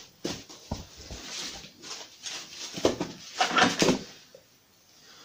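Knocks, clicks and scuffing of tools being handled and set down on wood, with a cluster of louder scrapes and a brief squeak about three seconds in.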